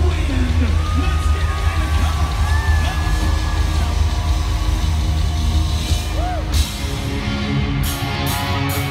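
Live rock band playing through a big arena PA, recorded on a phone, with heavy, overloaded bass, the singer yelling over it and the crowd cheering. The bass eases off about two-thirds through, and a few sharp crashes come near the end.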